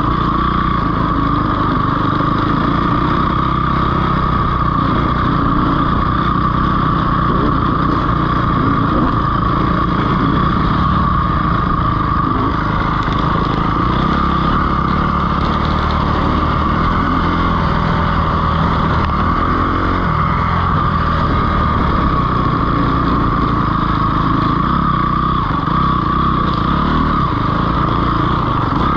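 Dirt bike engine running steadily under way on a trail ride, holding a fairly even pitch and level with no big revs or stops.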